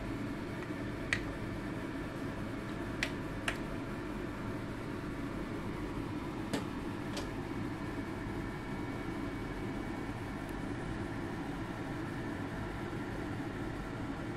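Steady mechanical whir with a faint hum from a running kitchen appliance. In the first half, a handful of light clicks from a plastic soup spoon knocking against the clay pot as the soup is stirred.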